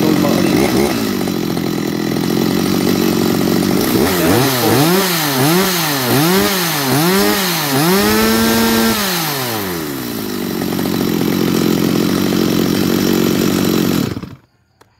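Stihl two-stroke chainsaw running. Its throttle is blipped four times and then held up for about a second before it drops back to idle. The engine cuts out suddenly near the end.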